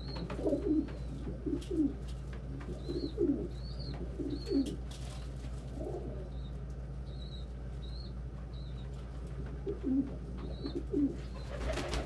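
Domestic pigeons cooing in short low calls, a territorial squabble over a shelf spot, with thin high peeps repeating throughout. A steady low hum runs underneath.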